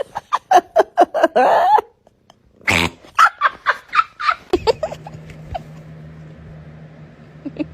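A cat making a quick run of short pitched calls, about five a second, then one longer wavering call; after a pause, a louder call and another run of short calls. From about halfway through, a steady low hum with only faint sounds over it.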